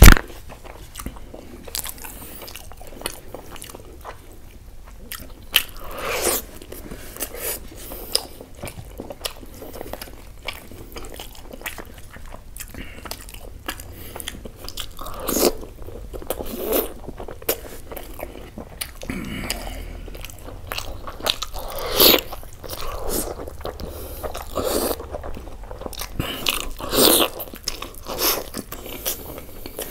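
Close-miked eating: a person chewing and biting puri and curried chicken, with a dense run of small mouth clicks and a few louder bites several seconds apart. A single sharp click right at the start is the loudest sound.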